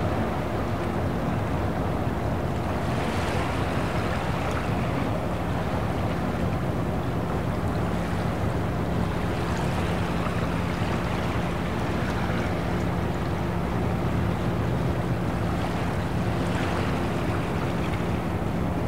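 Boat engine humming steadily at a low pitch over the wash of water, with a few soft swells in the noise about every six seconds.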